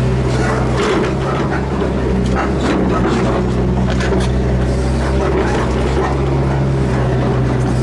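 Hydraulic excavator's diesel engine running steadily under hydraulic load, heard from inside the cab, with a few short knocks about two to four seconds in as the boom, bucket and swing are worked.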